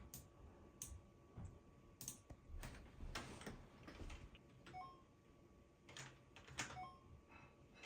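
Faint, irregular taps of a computer keyboard as answers are typed in, with a couple of short faint beeps among them.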